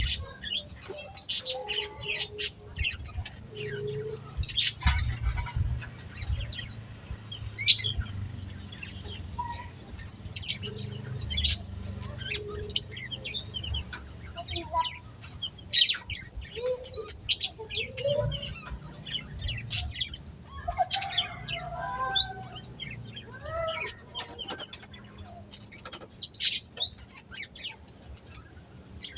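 A flock of small aviary birds chirping and calling over one another: many short high chirps, with some lower calls in between, over a low rumble.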